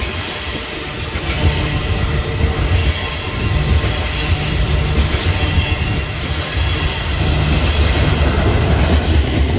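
Coal hopper cars of a long BNSF coal train rolling past: a steady rumble and clatter of steel wheels on the rails. It grows a little louder about seven seconds in.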